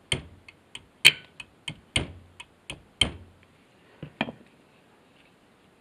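Claw hammer tapping the end of an Allen key set in a tight screw on an electric ATV winch, to break the screw loose: a run of sharp taps, about four harder blows a second apart with lighter taps between, ending with two blows a little after four seconds.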